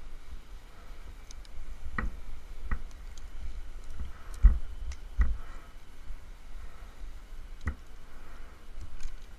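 Climbing rope and rigging hardware being handled with gloved hands, giving a handful of sharp, irregular knocks and clicks, the loudest about halfway through.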